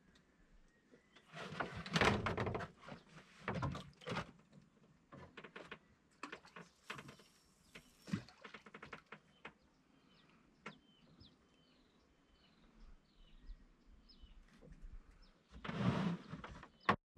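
Bumps, scrapes and rustles of fishing gear being handled in a wooden boat, in several short bursts. In the quieter middle stretch a bird repeats a short high chirp about twice a second.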